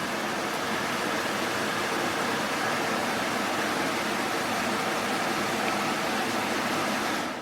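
Portable spot-cooler air conditioner running: a steady rush of blowing air with a faint hum under it, dropping away sharply near the end.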